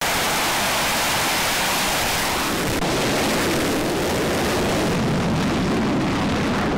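F/A-18 Super Hornet jet engines at full power during a catapult launch from a carrier deck: a loud, steady rushing roar whose highest part thins out over the last couple of seconds as the jet leaves the deck, then cuts off abruptly.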